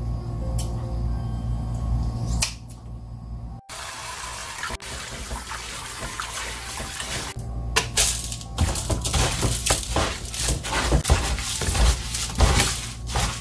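Kitchen scissors snip a couple of times. About four seconds in, a tap starts running into a stainless sink. Near the end, hands scrub and splash fish pieces in a plastic bowl of water, with many irregular splashes.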